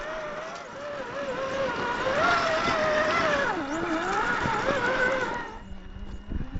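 Electric drive motor and gear drivetrain of a 1/10-scale RC rock crawler whining as it climbs over rocks, the pitch wavering up and down with throttle and load. The whine dips lower about three and a half seconds in, then stops about five and a half seconds in.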